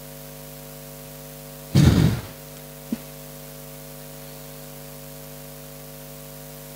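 Steady electrical mains hum from the microphone and PA system. About two seconds in comes one short, loud thump into the microphone, and a small click follows about a second later.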